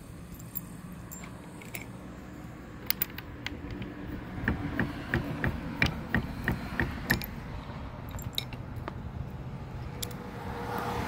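Small metal latch hardware (bolt, nut and washer) being handled and fitted through a gate-latch striker, giving a run of light metallic clicks and clinks, most regular in the middle at about three a second.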